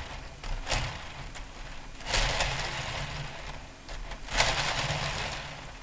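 A Lego Technic turntable ring being pushed around by hand, its plastic beams and gear teeth rattling and scraping over the plastic base in three bursts: a short one, then longer runs from about two seconds in and about four and a half seconds in.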